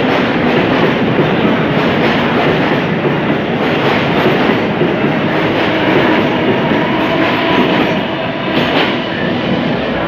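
Mumbai AC EMU local train running on the tracks as it departs, a steady loud noise of wheels on rail with a single knock near the end.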